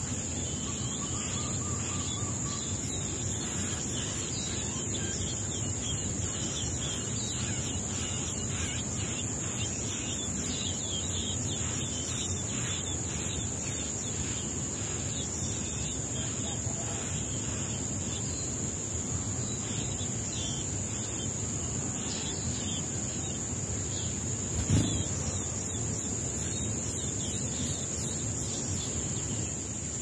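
Outdoor ambience: a steady high-pitched insect drone, with scattered faint bird chirps, mostly in the first half, and a single soft thump a little before the end.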